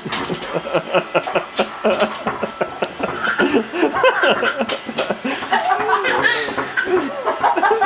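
People laughing in quick, continuous bursts of giggles and chuckles.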